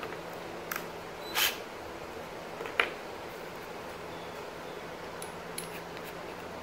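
A few light clicks and one short scrape as small hardware and tools are handled against the plastic kayak hull, with a sharp click nearly three seconds in, over a steady low hum.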